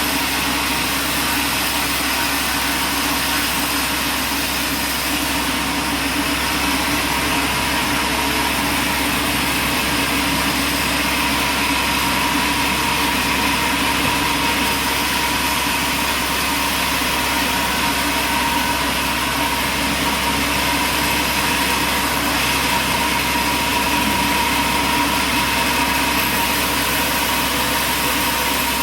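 Sawmill machinery running steadily: a constant engine-like hum with a steady high whine. It holds at one level, with no cutting strokes, starts or stops.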